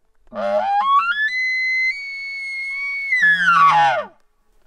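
Hunter's elk bugle call blown through a bugle tube, imitating a bull elk's bugle: a low grunt, then a whistle climbing in steps to a high note held for about two seconds, falling back to a low grunt near the end.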